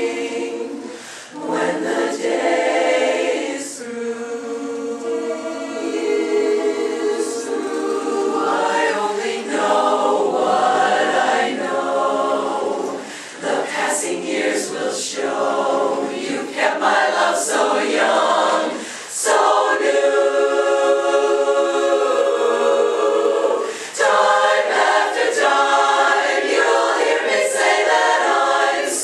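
Women's chorus singing a cappella, with brief pauses between phrases.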